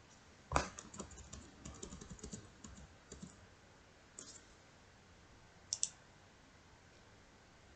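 Keystrokes and clicks on a computer keyboard and mouse while copying and pasting text: a loud click, then a quick run of smaller keystrokes over the next three seconds, one more click about four seconds in and a quick double click near six seconds.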